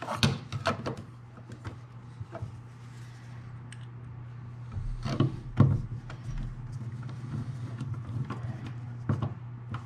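Screwdriver tightening the screw of an outlet cover plate: scattered light clicks and scrapes of the tool against the plate, over a low steady hum.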